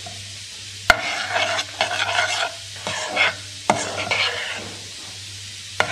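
A metal spoon stirring and scraping melting sugar caramel around a stainless steel saucepan, with sharp clinks of the spoon against the pot about a second in, just before four seconds, and near the end.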